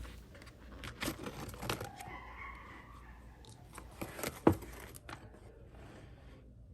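Paper planner being handled: quiet rustling and crinkling of pages and cover, with scattered small clicks and one sharper tap about four and a half seconds in.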